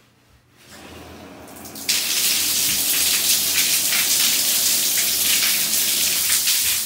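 Ceiling-mounted rain shower head being turned on: a faint rising hiss, then about two seconds in a sudden loud, steady rush of water pouring from its waterfall outlets.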